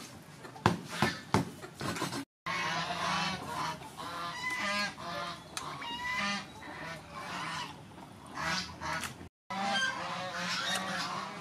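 A few sharp splashes and knocks near the start as fish is washed by hand in a steel bowl of water, then waterfowl honking over and over in the background.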